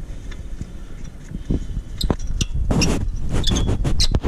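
Lug nuts being spun onto the wheel studs of an RV's steel wheel by hand. It is a run of light metallic clicks and clinks, thicker in the second half, over a steady low rumble.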